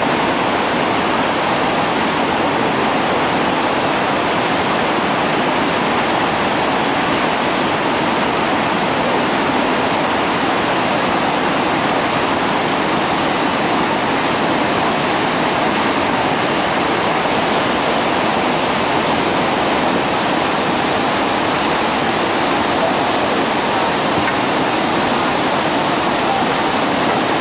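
Whitewater rapids rushing over and around boulders: a loud, steady noise of churning water that does not let up.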